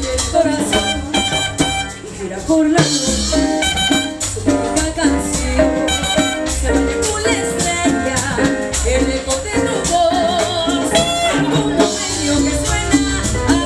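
Live cumbia band playing, with horns, hand percussion and lead singing over a steady dance beat.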